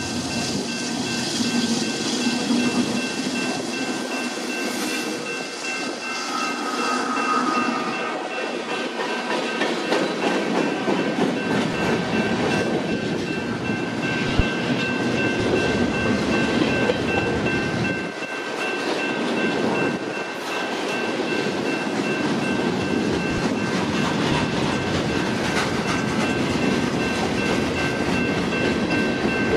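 Union Pacific freight train passing close by: the last lead diesel locomotive goes by, then a string of freight cars rolls past with a steady rumble and clatter of wheels on the rails.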